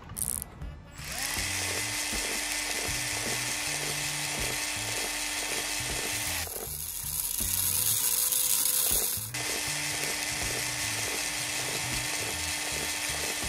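Electric blender motor running steadily, blending fruit into juice. About six seconds in, the sound changes to a higher, harsher pitch for around three seconds, then returns. Background music plays underneath.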